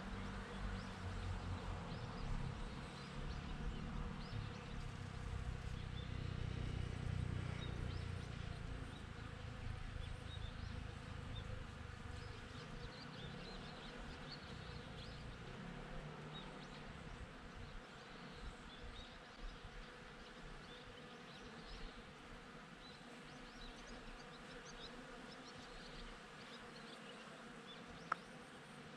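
Honey bees buzzing as they work cherry blossoms: a low buzz, loudest for the first ten seconds or so, then fading away. Faint high chirps are scattered throughout, and there is a single sharp click near the end.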